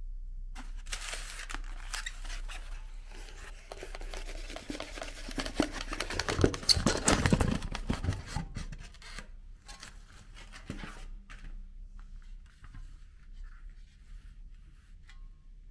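Meat grinder crushing and shredding a lemon: dense wet crackling and tearing that builds to its loudest in the middle, then thins out to scattered small clicks and squishes.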